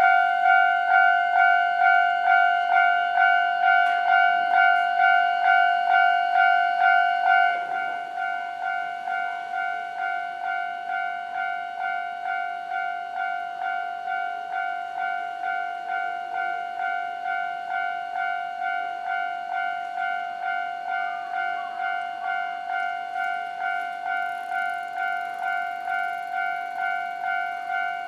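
Warning bell of a Japanese railway level crossing on the Nankai Main Line ringing steadily, about two dings a second. About seven seconds in, it becomes quieter and thinner, then keeps ringing at the same pace.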